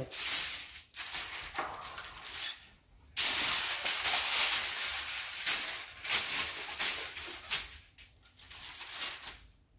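Aluminium foil crinkling as sheets of it are folded and pressed into shape by gloved hands. The rustling comes in short bouts at first, then runs loud and continuous for several seconds from about three seconds in.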